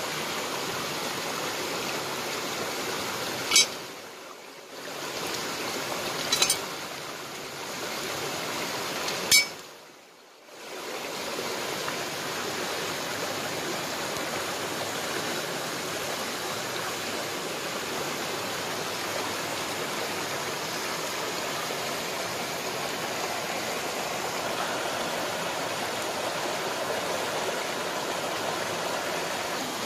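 Shallow stream running over stones, a steady rushing. Three sharp clicks break it in the first ten seconds, each followed by a brief drop in the water sound.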